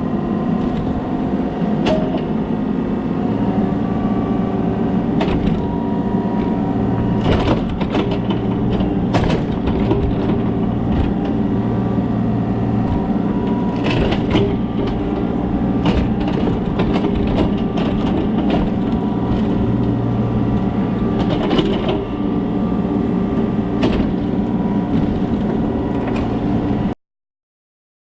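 Kobelco SK35SR mini excavator's diesel engine running hard under hydraulic load, with repeated sharp cracks and knocks throughout as it pushes against the tree. The sound cuts off suddenly near the end.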